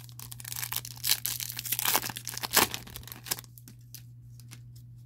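A Topps Chrome trading card pack's crimped wrapper torn open by hand, with crinkling and tearing for about three seconds, loudest in a few sharp rips, then only faint rustles. A steady low hum runs underneath.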